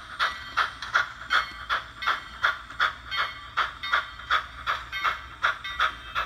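Sound-decoder steam chuffs from an HO scale Bachmann Norfolk and Western 2-8-0 Consolidation with a Soundtraxx Tsunami 2 decoder, played through its megabass speaker while the model locomotive runs. The exhaust beats come in an even rhythm of about two and a half to three chuffs a second.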